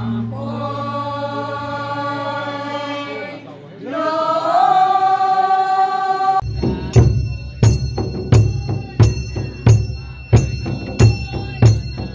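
Group of women singing a traditional song together in long held notes, with a gong's low hum under the first seconds. About six seconds in the singing cuts off and is replaced by steady drum beats, about three every two seconds, for dancing.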